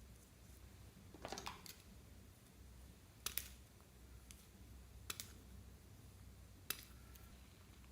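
Crunchy slime with beads and floam being worked by hand: a short burst of crackling about a second in, then three sharp single clicks or pops about a second and a half to two seconds apart.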